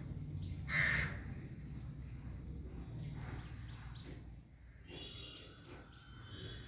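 A cat gives one short, high meow about a second in, followed by fainter calls.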